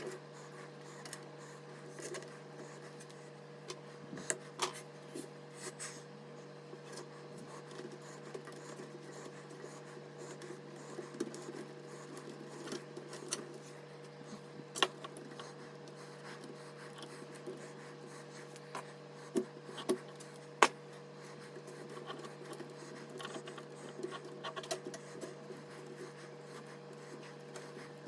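Scattered sharp clicks and taps with soft rubbing as PC parts are handled, a handful of louder clicks among them, over a steady hum.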